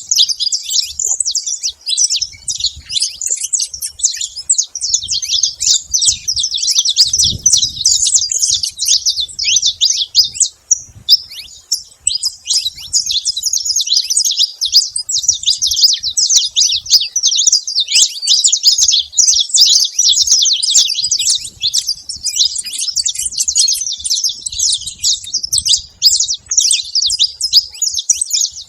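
Saffron finches singing loudly: a dense, nearly unbroken stream of rapid high chirps and trills, pausing only briefly twice.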